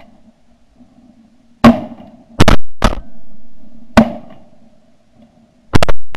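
Music with loud, sharp drum hits, some coming in quick doubles and triples, over a faint steady drone.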